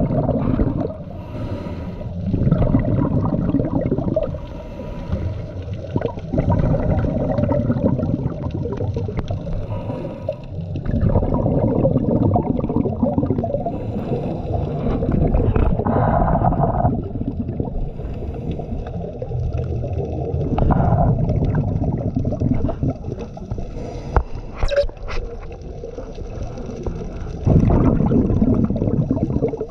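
Scuba diver breathing through a regulator underwater: exhaled bubbles rumble and gurgle in bursts lasting a few seconds, alternating with quieter inhalations through the regulator.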